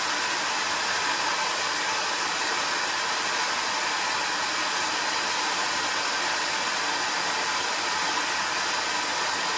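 Homemade bee vacuum running steadily, its motor drawing air through a wide suction hose as bees are vacuumed off the comb.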